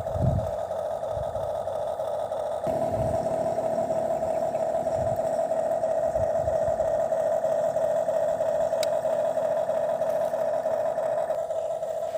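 Small electric motor of a toy excavator whining steadily at one pitch, with a few soft low thumps in the first half.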